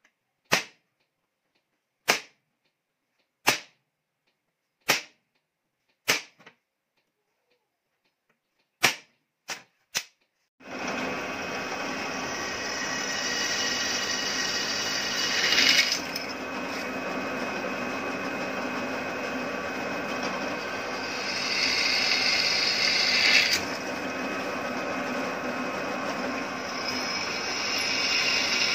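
Eight sharp single taps, spaced about a second and a half apart, then a pillar drill press running and drilling through steel square tube. The steady machine noise swells into a louder, higher cutting screech three times as the bit bites into the steel.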